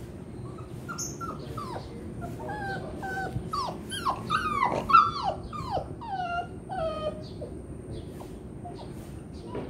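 Beagle whining and whimpering in a quick run of short cries that fall in pitch, growing louder toward the middle and then tapering off.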